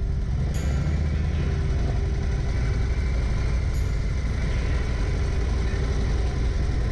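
Motorcycle engine running at a steady speed under road and wind noise, heard from on the bike.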